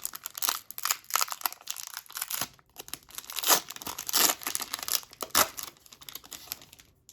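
Foil wrapper of an Upper Deck hockey card pack being torn open and crinkled in the hands. A dense crackling runs throughout, with louder rips about halfway through, and it eases off near the end.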